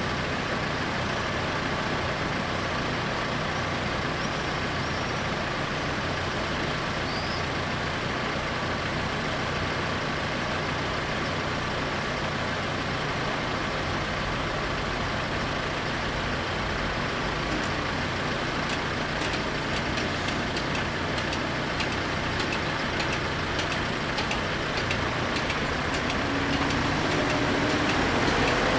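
Steady hum of cars idling and street traffic while the level-crossing barriers are down. Near the end it grows louder as the barriers lift and a car engine rises in pitch pulling away.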